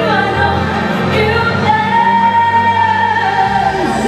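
Female singer singing live into a microphone over backing music, holding one long high note through the second half.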